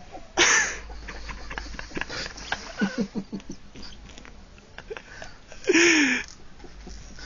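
A man snoring: two loud snores about five seconds apart, the second with a tone that dips and comes back up, and softer fluttering breaths between them.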